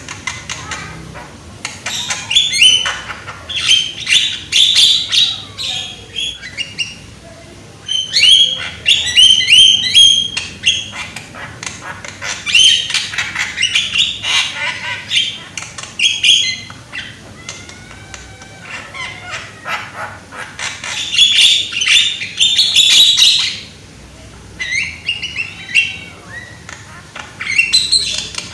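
Young Javan myna (jalak kebo) singing loudly in bursts of harsh, rapid chatter mixed with clicks and short whistles. Each burst lasts a few seconds, with brief pauses between them.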